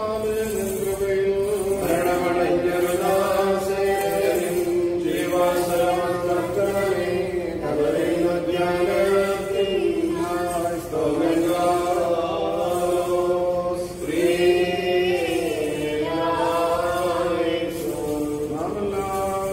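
Liturgical chanting: voices singing a slow, wavering melody in long held notes with brief breaks between phrases.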